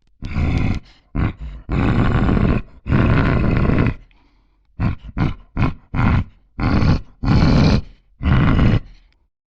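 Zombie grunting sound effect voiced by a person: a string of rough, guttural growls and grunts, some held for about a second, others short and clipped, with brief pauses between.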